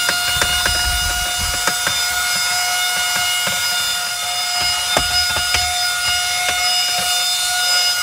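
Autoommo mini cordless car vacuum running with a steady high whine and a hiss of air, and irregular ticks and scrapes while its brush attachment is worked over a ribbed rubber console mat.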